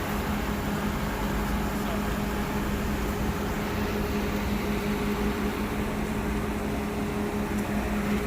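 Steady mechanical drone with a constant low hum that does not change.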